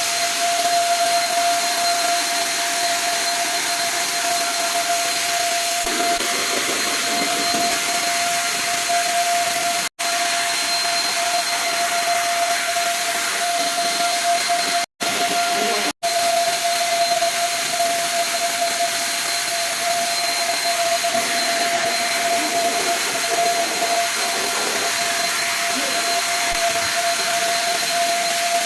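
An electric power tool's motor running steadily, a loud hiss with a constant high whine, cut off abruptly for a moment three times.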